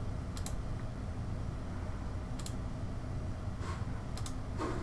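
Four scattered, sharp clicks from a computer mouse and keyboard during desktop work, over a low steady room hum.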